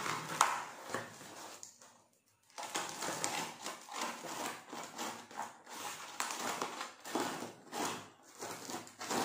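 Corrugated cardboard box being torn open by hand: uneven ripping and scraping of the cardboard and its packing tape, with a short pause about two seconds in.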